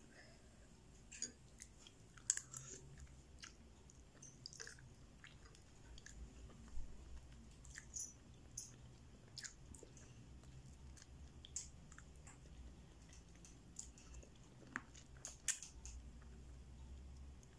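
Faint chewing of chicken meat picked off the bone, with scattered small irregular clicks and smacks of the mouth.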